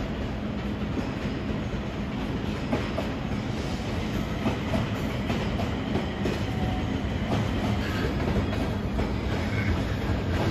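Electric commuter train running at a railway station platform: a steady rumble with a low hum and scattered clicks from the wheels on the track.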